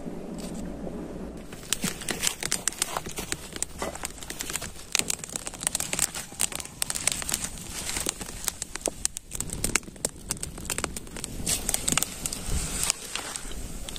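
Irregular crackling and popping of a twig fire under an iron kadhai, joined by cumin seeds spluttering in hot oil, starting about a second and a half in.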